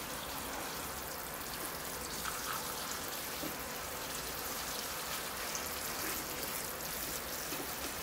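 Water from a watering can's rose sprinkling steadily onto the gritty soil of a freshly repotted bonsai and the wet tray around it.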